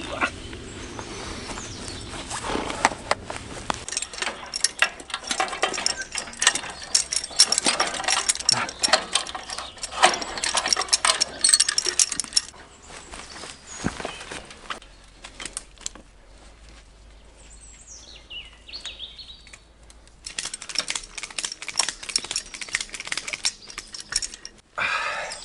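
Rapid clicking and metallic rattling in two long runs, with a quieter pause between them, as rigging is wrapped around a steel safe and fastened to it.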